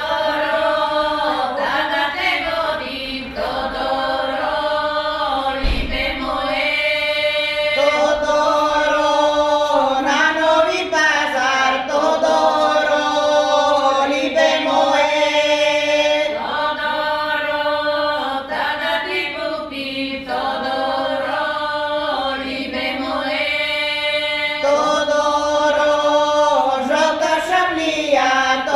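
A group of women singing a Bulgarian village folk song unaccompanied, in phrases of a few seconds with long held notes and short breaks for breath.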